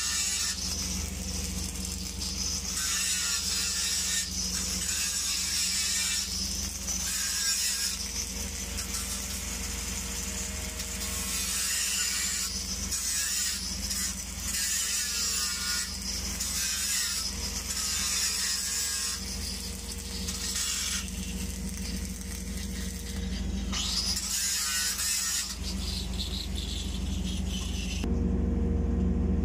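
Welding arc from a mechanized pipe-welding carriage crackling and hissing as it runs a weld bead around a steel pipe, over a steady low hum. Near the end the arc stops and only the hum remains, louder.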